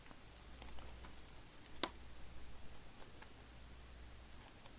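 Trading cards being handled: faint scattered clicks and light taps as cards are moved and sorted, with one sharper click a little under two seconds in, over a faint steady low hum.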